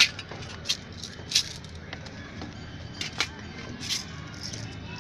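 Scattered sharp metallic clicks and clinks, about six in all, as a cobbler moves his iron tools and shoe last, over a steady low background noise.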